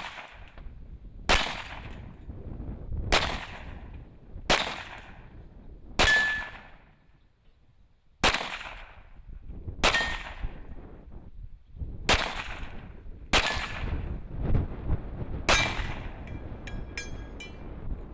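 Precision rifle shots, about nine of them, one every second and a half to two seconds. Several are followed by a short, thin ring of a steel target being hit.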